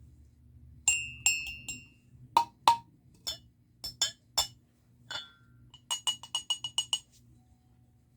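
Cups being tapped so that they clink and ring, each at its own pitch: a string of single strikes, then a quick run of about nine strikes around six seconds in.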